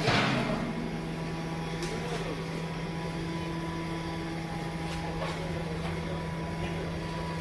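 A steady low machine hum with a fainter high tone, holding at an even level, with a few faint clicks.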